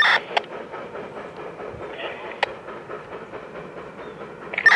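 A distant train coming along the track: a steady rumble of wheels on rail, with a few sharp clicks.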